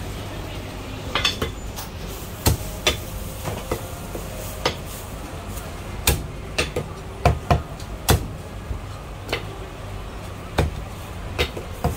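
Chinese cleaver chopping through a cooked whole chicken, bones included, on a thick round wooden chopping block: irregular sharp chops, about a dozen, over a steady low hum.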